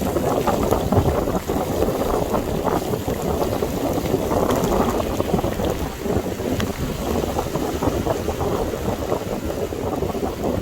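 Wind buffeting the microphone while riding a bicycle through heavy rain: a steady, rough, low rushing noise that flutters throughout.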